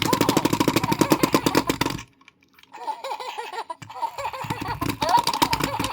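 Tyco Tickle Me Ernie talking toy running: a fast rattle from its shaking mechanism, then a brief pause, then its electronic laughing voice through the small newly fitted speaker.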